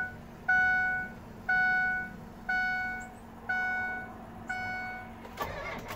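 Ford truck's dashboard warning chime ringing once a second, each ding fading before the next, about six times. A brief knock comes near the end.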